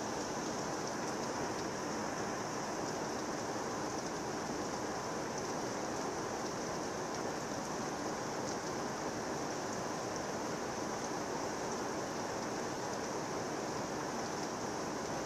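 Heavy rain pouring down steadily in a thunderstorm downpour: an even, unbroken rush of rain noise.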